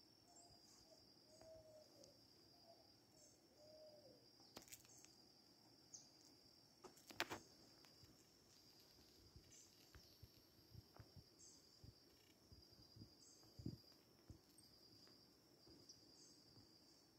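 Faint outdoor ambience of insects trilling in a steady, high, pulsing band. A few short, faint calls come in the first four seconds, and a single sharp click about seven seconds in.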